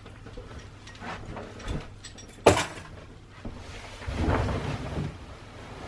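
Rustling of a duvet and bedding as someone gets back into bed, with one sharp click about two and a half seconds in.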